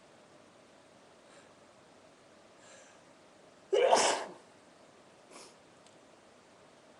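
A person sneezes once, loudly, about four seconds in.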